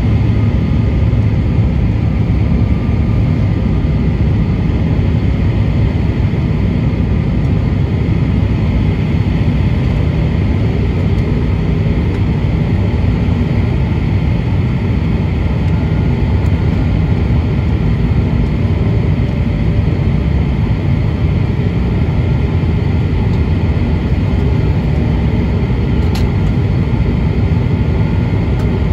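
Steady cabin noise of an airliner descending on approach: engine noise and rushing air, strongest low down, with a faint steady whine above it.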